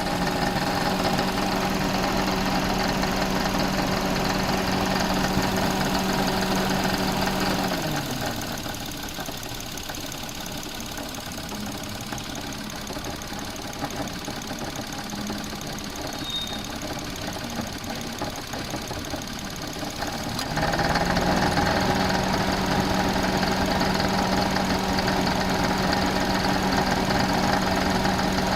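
Suzuki Alto engine running with a rattle from the engine bay. The revs are held up, drop back to idle about 8 seconds in, rise again about 20 seconds in, and fall near the end. The rattle comes from an alternator that is not running true and wobbles on a damaged lower mounting bolt and bracket.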